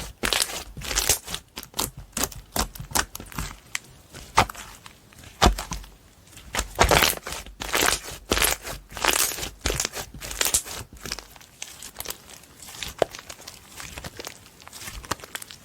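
Slime being squished and stretched by hand: an irregular run of sticky clicks and pops, thinning out in the last few seconds.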